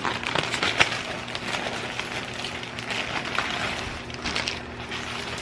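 Plastic packaging crinkling and rustling as it is handled and opened, with a sharper crackle about a second in.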